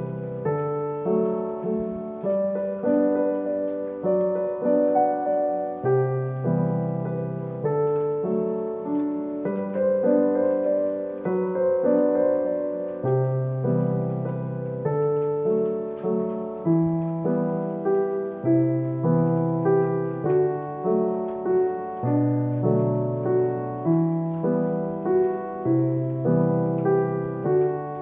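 Background piano music: a continuous melody over low notes that change every three to four seconds.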